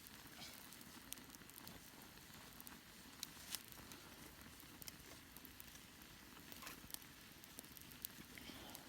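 Faint crackling and sizzling of food cooking over a fire, with scattered sharp pops.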